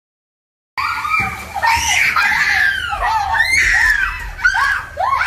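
Young girls shrieking and squealing with laughter inside a lift car, their high voices sliding up and down in pitch. It starts suddenly after under a second of dead silence.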